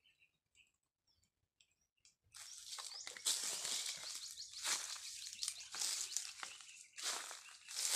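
Faint bird chirps, then from about two seconds in, loud dry rustling and crunching in swells as someone moves and reaches through dry leaf litter and grass.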